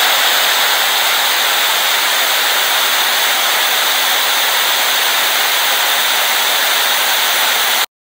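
Loud, steady hiss of analog television static, cutting off suddenly near the end.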